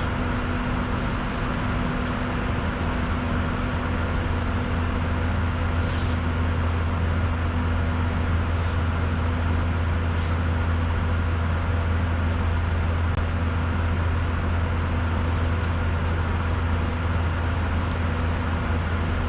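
Steady in-flight cockpit noise of a Bombardier Challenger 605 in descent: a constant low hum with a steady tone above it and an even rush of air. A few faint ticks come and go near the middle.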